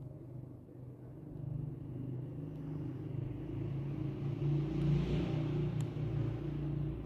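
Motor vehicle passing, a low rumble with tyre-like hiss that swells to its loudest about five seconds in and then eases.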